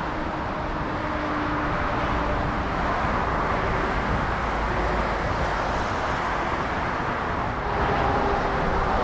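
Jet airliner engines running: a steady rushing rumble with faint whining tones, growing a little louder near the end.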